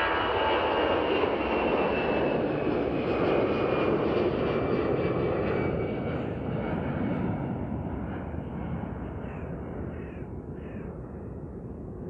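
Airbus A319 twin-jet airliner climbing out just after takeoff: its engines give a loud, steady jet roar with whining tones that slowly fall in pitch. The sound fades gradually over the second half as it moves away.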